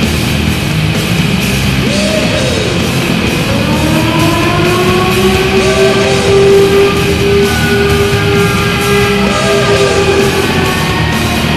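Loud hard-rock goal song with distorted electric guitar, played after the Buffalo Sabres' goal horn. A long held note runs through the middle, from about four to ten seconds in.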